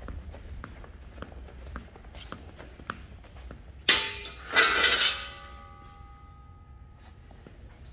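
Aluminum scrap clanking against a metal workbench: a sharp knock about halfway through, then a quick cluster of clangs that leave a metallic ring fading over about two seconds. Light ticks and shuffles come before it.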